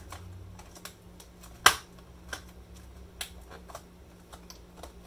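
Scattered clicks and taps from a ThinkPad X40 laptop keyboard being pressed down by hand to reseat it in its frame, with one sharp click about a second and a half in.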